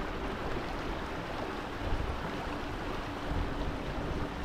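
Shallow creek water running over rocks, a steady rush, with wind rumbling on the microphone.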